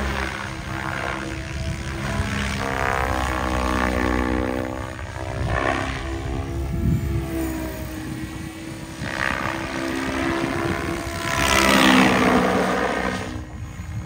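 SAB Goblin Genesis radio-controlled helicopter flying aerobatics: its rotor hum rises and falls in pitch as the model passes and manoeuvres. There are several louder whooshes from the blades, the strongest near the end.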